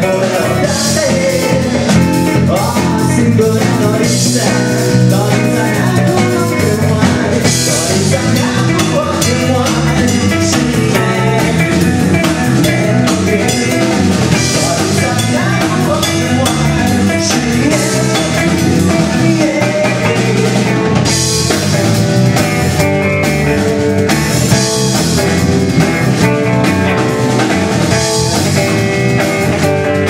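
Live rock band playing a song: drum kit, electric bass and electric guitar, with a man singing over them.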